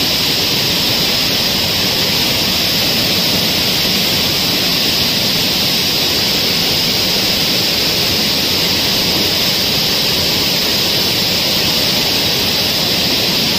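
Water rushing out through a dam's spillway gate and pouring over its top: loud, steady heavy flow. The gate is raised four feet and water still spills over it, a sign of the high pressure behind it.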